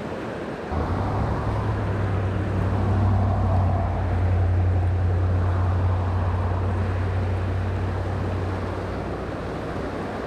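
Pickup truck on the move: a steady low engine and road drone that cuts in suddenly under a second in and eases off near the end, after a moment of rushing river water.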